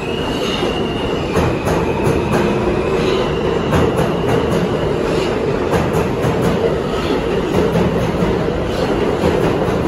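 R160 subway train pulling out of an underground station and picking up speed, with a steady loud rumble of wheels and scattered clacks. A high whine steps up in pitch about three seconds in.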